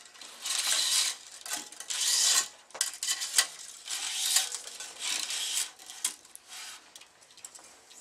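A tennis cross string being pulled through the racket's main strings, rasping as it rubs across them in about four long pulls, with a few sharp clicks in between.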